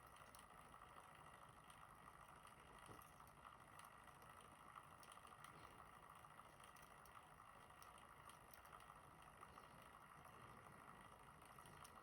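Near silence: a steady faint hiss with a few faint ticks.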